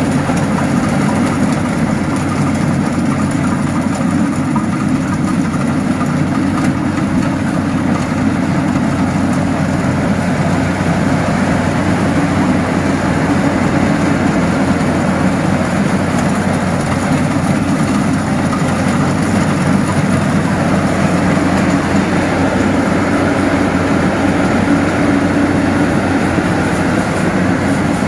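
Yanmar YH8500 rice combine harvester running steadily, its diesel engine and machinery giving an even, unbroken drone.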